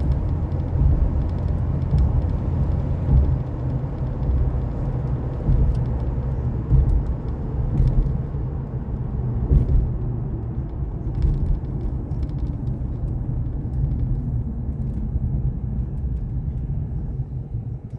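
Engine and road noise of a moving vehicle, heard from inside, as a steady low rumble that eases off gradually over the last few seconds.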